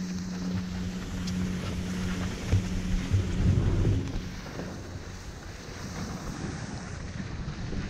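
Wind rushing over the microphone of a skier heading downhill, with skis hissing over groomed snow; the rush is loudest and gustiest around three seconds in, then eases.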